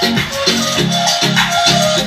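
A song played loudly from a USB card through a homemade amplifier driving an 8-inch speaker, with a steady beat and a repeating bass line.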